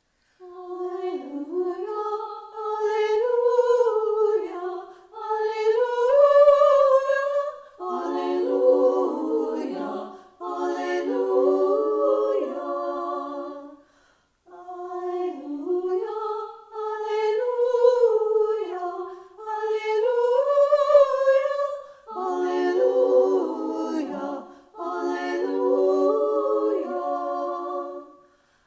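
A small group of women singing a cappella in short phrases with breaths between them, some phrases in one line and some splitting into harmony, with a brief pause about halfway through.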